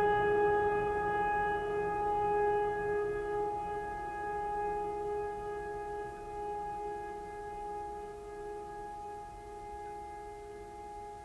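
Background music: a long held note with several overtones, fading slowly.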